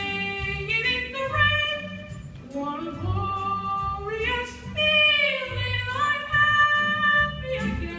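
Solo singing of a slow show tune with long held notes and gliding pitch, over instrumental accompaniment with a pulsing bass line.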